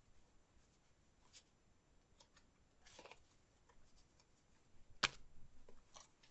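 Faint clicks and rustles of baseball trading cards being flipped through by hand, a few soft ones spread out, with one sharper card snap about five seconds in.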